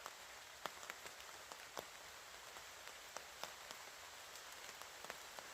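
Faint steady rain pattering on the tarp overhead, with scattered sharper drops striking every fraction of a second.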